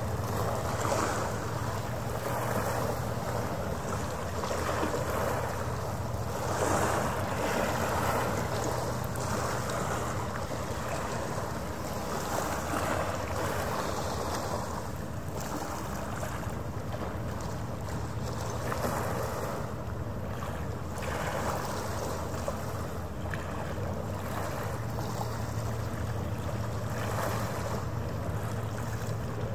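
Harbour water washing against the shore, swelling and easing irregularly every few seconds, with wind on the microphone and a steady low hum underneath.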